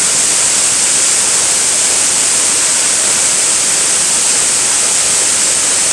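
Steady, loud rush of a tall waterfall in spate, swollen with brown water after heavy rain.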